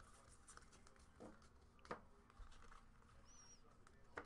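Near silence with faint clicks and slides of trading cards being flipped through by hand, a few sharper ticks among them, and one brief faint high squeak midway.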